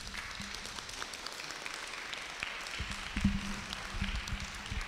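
Small audience applauding at the end of a talk, a thin spatter of hand claps.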